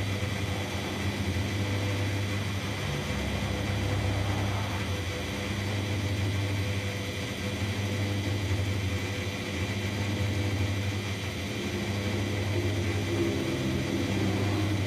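Old mechanical petrol dispenser pumping fuel: its pump motor hums steadily.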